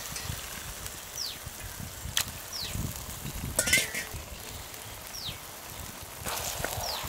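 Raw chicken pieces sizzling on hot gongura (sorrel leaf) masala in a pan, with a click about two seconds in and a louder clatter just past halfway. A short high chirp falling in pitch comes four times.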